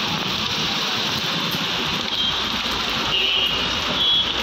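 Heavy monsoon rain pouring onto pavement and road, a steady hiss, with traffic running on the wet road underneath and a few short high-pitched tones about halfway in and near the end.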